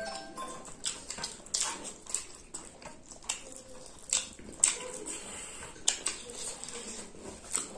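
Close-miked eating sounds of people eating rice and chicken by hand: wet lip smacks and chewing, with irregular sharp smacks every second or so.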